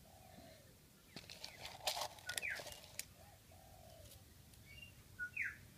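Stiff cut strips of tie-down strap clicking and rustling as they are pressed down into a mould, a few sharp clicks between about one and three seconds in. Birds chirp faintly in the background.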